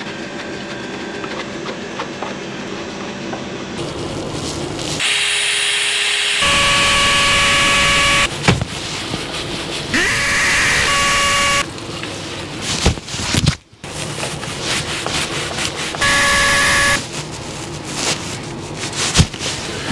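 Cordless drill-driver running in three bursts of a second or two each, a steady motor whine, driving screws to fix an electrical box to the wall. Knocks and handling clatter come in between.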